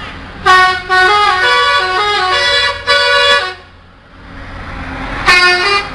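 Bus telolet horn: an Indonesian bus's multi-trumpet musical horn plays a short melody of several stepping notes for about three seconds. A brief single blast follows near the end, over a steady low road rumble.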